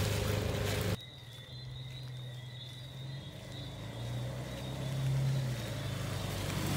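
A small boat's motor running across the water, cut off sharply about a second in, followed by quiet night-time outdoor ambience: a low wavering hum and a faint, steady high-pitched chirring, growing slowly louder toward the end.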